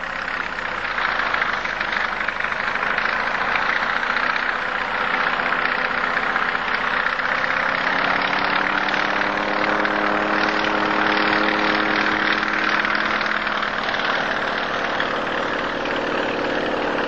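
An engine running steadily, with its pitch shifting slightly about halfway through.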